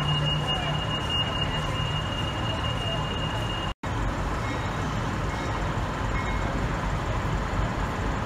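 NR class diesel-electric locomotive's engine running with a steady low drone as it approaches slowly along the platform, amid station hubbub. A thin steady high whine is heard until a brief dropout almost four seconds in.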